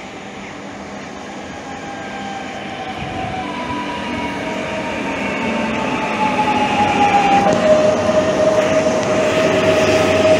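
A train approaching and growing steadily louder, with a whine that slides down in pitch and then holds steady at a lower pitch near the end.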